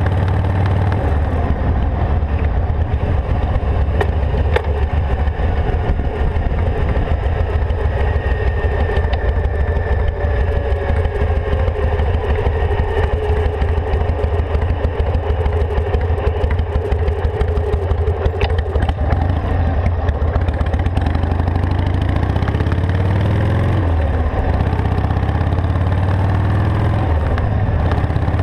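Harley-Davidson Sportster XL883's air-cooled V-twin engine running steadily while the motorcycle is ridden. Its pitch sinks slowly through the middle, shifts about two-thirds of the way in, and dips and climbs again a few seconds later.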